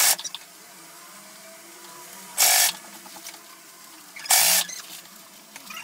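Electric sewing machine running in three short bursts of a few stitches each, about two seconds apart, as a seam is stitched slowly.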